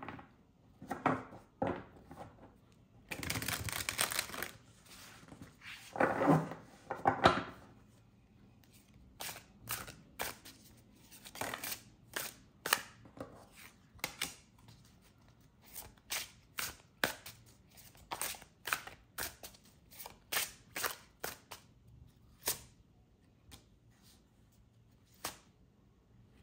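A deck of large glossy tarot cards being shuffled by hand: a few longer rustling shuffles over the first seven seconds or so, then a long run of short, sharp card snaps, about one or two a second.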